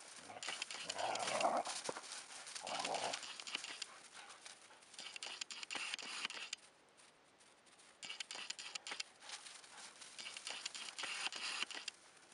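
Two dogs playing in snow: a dog's voice sounds twice within the first three seconds, then paws crunch and scuffle through the snow in bursts, with a quieter lull in the middle.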